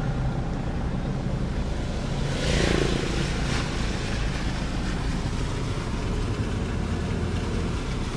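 Car driving slowly through floodwater, heard from inside the cabin: a steady low engine and road rumble, with a brief louder rush of noise about two and a half seconds in.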